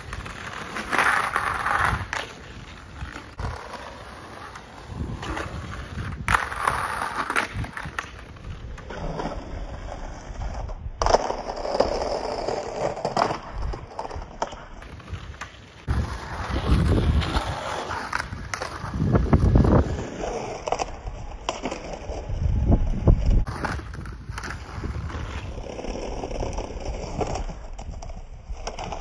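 Skateboard wheels rolling over paving and grinding and sliding along a concrete curb edge, in several separate passes a few seconds apart. Each pass swells into a rough rumble and scrape, then falls away.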